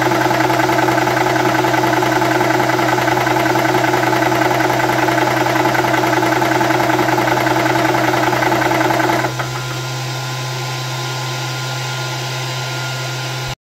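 Wolf 300 bar high-pressure air compressor running while filling an air gun, a loud steady mechanical noise over a low hum. About nine seconds in the louder part cuts off, leaving a quieter steady hum with a faint thin whine.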